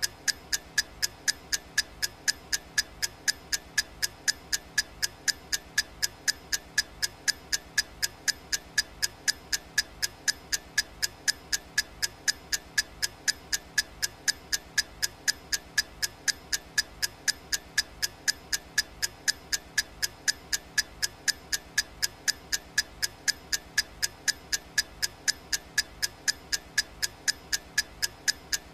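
Clock-ticking sound effect of a digital countdown timer: sharp, evenly spaced ticks at a steady, unchanging rate.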